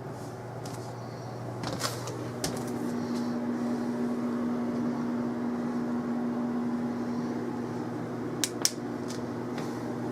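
A kitchen appliance starts up after a couple of clicks about two seconds in and runs with a steady electric hum and a motor whir. Two sharp clicks come near the end.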